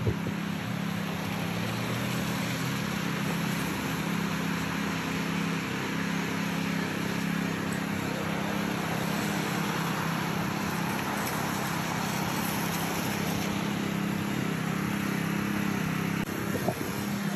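Traffic on a wet street in light rain: a steady low engine hum under an even wet hiss.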